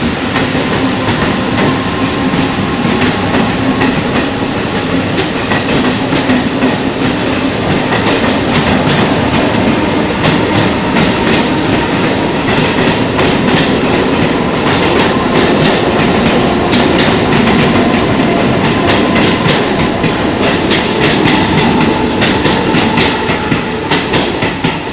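Mumbai suburban electric local train running past along a platform: a steady rumble of the carriages with the wheels clicking over the rail joints, the clicks coming thicker in the second half.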